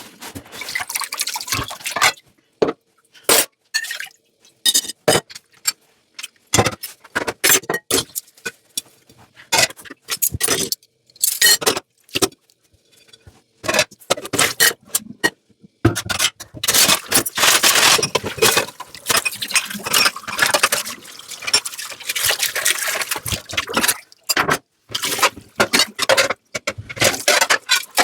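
Dishes and glassware clinking, knocking and scraping as they are handled and washed in a sink, in short separate strokes. About halfway through, water starts running and splashing for several seconds under the clinks.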